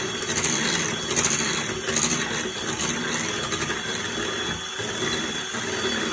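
Electric mixer running steadily on its lowest speed, beating pancake batter in a bowl.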